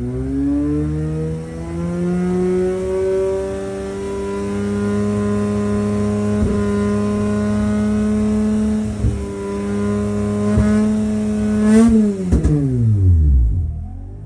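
Mazda RX-8's 13B Renesis rotary engine revved slowly up through the range and held near the top. It stumbles there with several brief hiccups, the owner's 'hiccup at 6,500 rpm'. About twelve seconds in the throttle is released and the revs fall quickly back toward idle.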